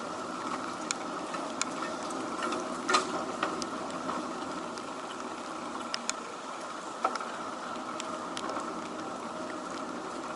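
Typhoon rain falling steadily, with scattered sharp drops tapping close by at irregular moments, the loudest about three seconds in.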